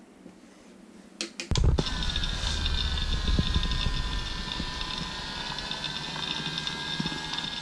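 Small electric motor and fan of a homemade mini vacuum cleaner switched on with a click about a second and a half in, then running with a steady whine.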